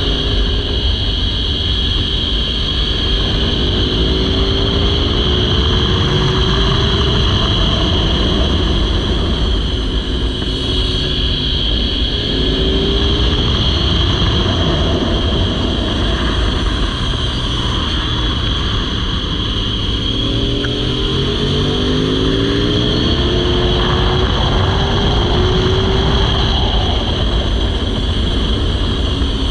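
Onboard sound of a naked sport motorcycle accelerating hard on a race track. The engine note rises again and again as it pulls up through the gears, under a steady rush of wind noise.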